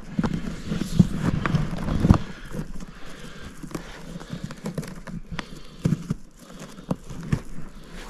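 Irregular clicks, knocks and rattles of a sawbuck pack saddle's wooden crossbucks, leather straps and buckles being handled on a mule. There is a denser, louder patch of rumbling and knocking in the first two seconds.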